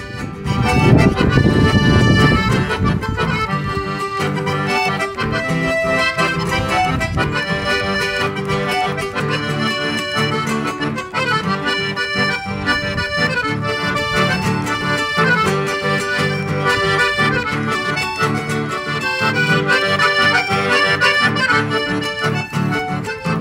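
Piano accordion and acoustic guitar playing a chamamé as an instrumental duo. The accordion carries the melody in held and moving notes over the guitar's rhythmic accompaniment.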